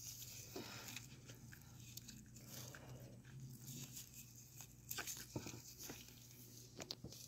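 Quiet room with a steady low hum and a few faint, small clicks of steel tweezers touching a Seiko 7005A watch movement.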